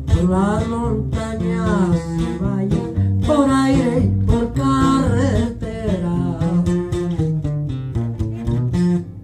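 A man sings the drawn-out closing line of a corrido over a strummed and picked twelve-string acoustic guitar; after about five seconds the voice stops and the guitar plays on alone toward the end of the song.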